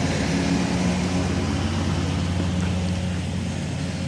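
Engine running steadily at idle, a low even hum with no change in speed.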